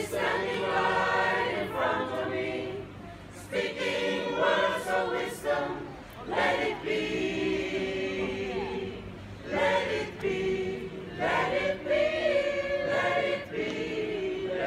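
Mixed church choir singing a cappella, in phrases broken by short breaths.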